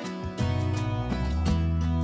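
Background music: strummed and plucked acoustic guitar in a country style, with a steady bass line.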